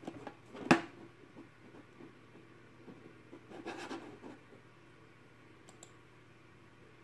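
A sharp click a little under a second in, then soft rubbing and scraping, and two faint ticks later on: mouse clicks and hand handling noise close to the microphone, over a low room hum.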